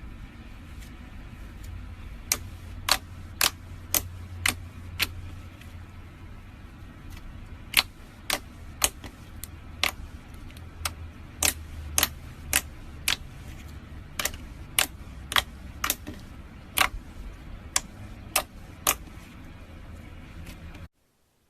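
Clear slime being worked by hand, giving irregular sharp pops and clicks as trapped air bursts, over a low steady hum. The sound stops abruptly near the end.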